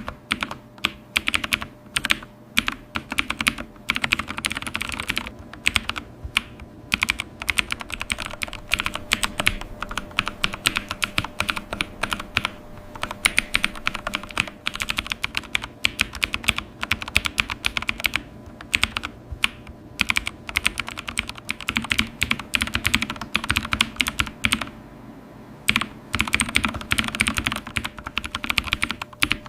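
Typing on a computer keyboard: a fast, continuous stream of keystroke clicks, with a brief pause a few seconds before the end.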